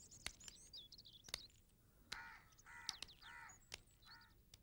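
Faint outdoor birdsong: small birds twittering, then a crow cawing four times from about two seconds in. A few sharp light clicks are scattered through it.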